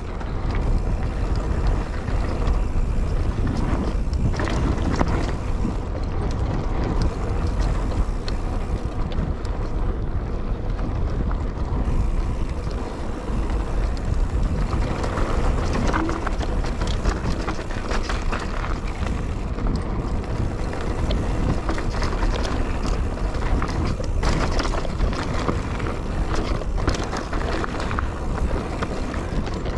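Mountain bike ridden along a dirt forest trail: wind buffets the action camera's microphone over the tyre noise, with frequent clicks and knocks from the bike rattling over bumps.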